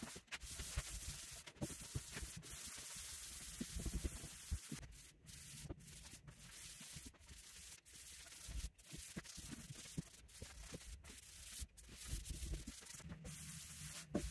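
Rag wiping wood stain onto the bare wood of a coffee table: soft, irregular rubbing strokes with light handling knocks, broken by many brief gaps.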